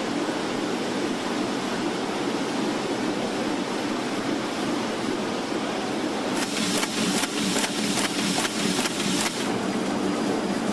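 Steady noise of banknote printing machinery running, with a run of sharp clacks, about three a second, from about six to nine seconds in.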